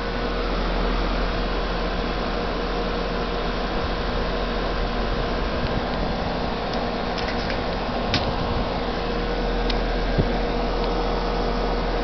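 4-ton York Affinity Series 2S heat pump outdoor unit running in heat mode: its condenser fan blows steadily over the hum of its Copeland scroll compressor, with a steady tone running through. A couple of light ticks come in the second half.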